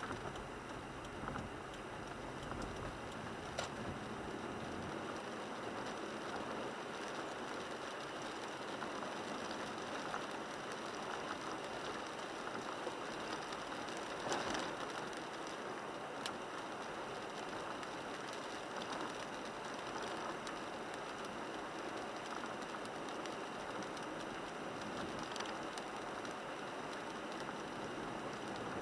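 Steady hiss of rain and tyres on a wet road, heard from inside the cabin of a 1998 Toyota 4Runner driving in the rain, with a few faint, scattered clicks.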